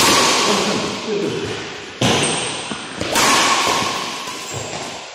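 Badminton rackets hitting the shuttlecock in a rally: three sharp hits, at the start, about two seconds in and about three seconds in, each trailing off in a long echo from the hall.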